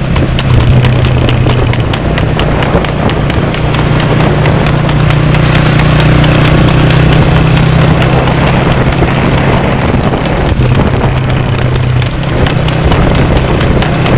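Horse's hooves striking a paved road in rapid, even clip-clop as it pulls a two-wheeled cart at a fast trot, over a steady low drone.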